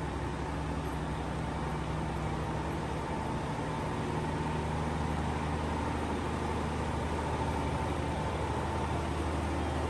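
Diesel railcar engines idling steadily, a low hum with a faint steady whine above it. The low hum grows a little about four seconds in.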